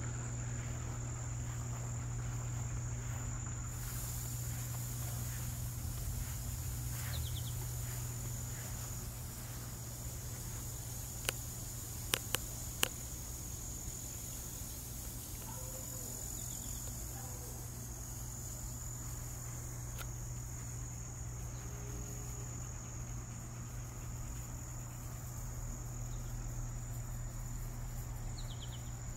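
Crickets trilling steadily, a constant high-pitched tone, over a low steady hum. A few sharp clicks come around the middle.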